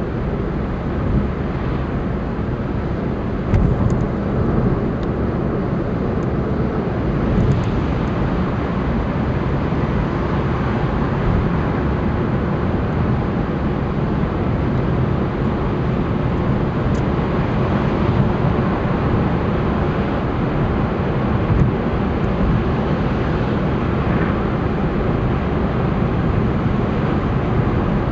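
Steady road and engine noise of a car driving at expressway speed, heard from inside the cabin, with a couple of light knocks about four and eight seconds in.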